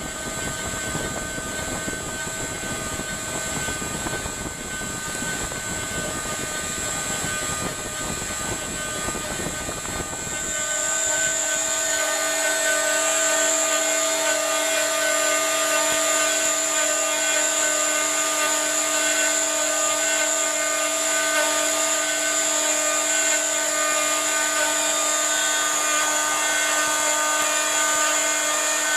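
CNC router spindle running with a steady high whine. About ten seconds in, the low rushing noise underneath drops away and the whine gets louder.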